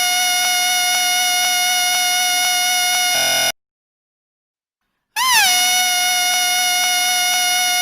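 A shrill whistle held on one steady note. About three and a half seconds in it cuts off into silence for under two seconds, then starts again with a quick rise and fall in pitch before holding the same note.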